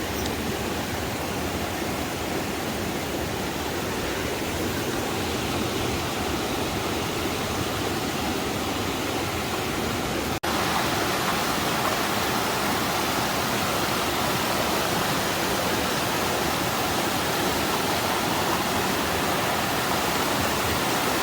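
Steady rush of water from a small mountain waterfall. It breaks off for an instant about halfway, then resumes a little louder.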